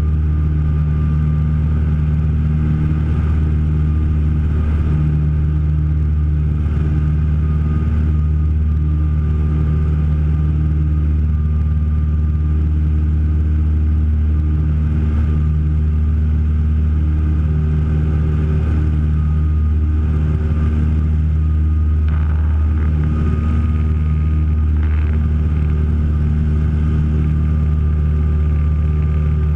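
Piper PA-30 Twin Comanche's two four-cylinder Lycoming engines and propellers droning steadily, heard from inside the cabin, with a faint high tone coming and going.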